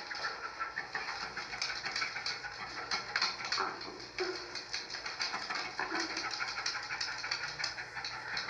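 A dog right at the microphone: steady close rustling and crackling of fur and movement, with a few brief low sounds from the dog in the middle of the stretch.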